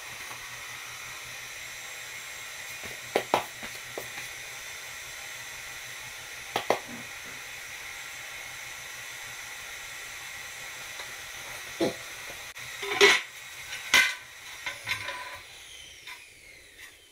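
Large floor tiles being set down on the floor and pressed into place, giving a handful of short sharp clacks, the loudest two near the end. Under them a steady hiss fades out shortly before the end.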